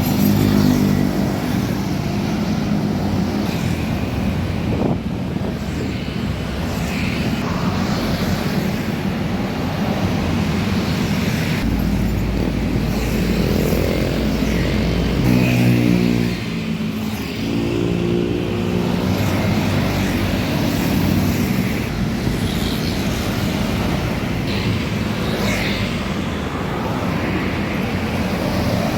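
Road traffic with bus engines running. A little past halfway, a pitched engine or horn sound rises and falls for several seconds.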